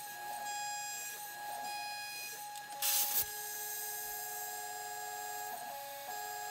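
Tormach 1100 CNC mill's spindle and end mill cutting a metal part: a steady machine whine made of several tones, whose pitch steps about three seconds in and again near the end as the toolpath changes. About three seconds in there is a brief, loud burst of hiss.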